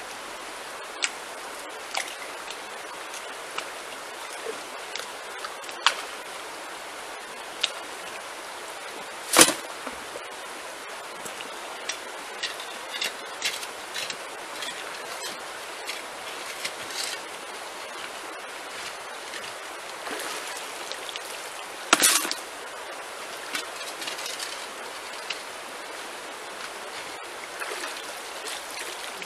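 Steady running of a shallow stream over gravel, with scattered clicks and knocks of a shovel scraping and striking stones in the streambed and water splashing off the blade. Two louder knocks stand out, about nine seconds in and again about twenty-two seconds in.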